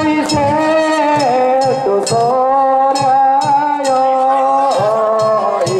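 Danjiri festival music: a drum and a metal gong beaten in a steady rhythm of about two to three strokes a second, under a held, sliding melody.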